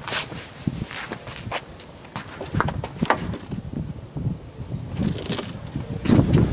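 Scattered metallic clinks and jangles from hands working with small metal pieces, several with a bright ringing tone, over light rustling.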